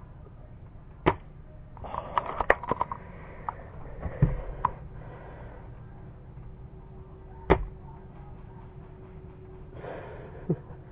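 Custom Well MB06 spring-powered bolt-action airsoft sniper rifle firing twice, two sharp snaps about six seconds apart, with a short run of clicks and rattles soon after the first.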